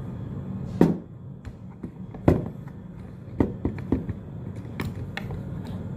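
Selfie-stick tripod being handled and adjusted on a table: a handful of sharp plastic clicks and knocks, the loudest about one and two seconds in, over a steady low hum.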